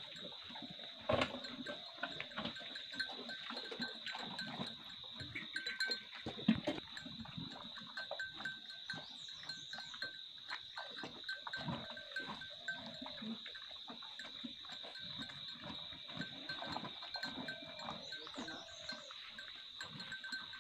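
Cattle feeding from plastic bowls: irregular knocks, scrapes and rustling, with one sharp knock about a second in. A steady high-pitched insect drone continues underneath.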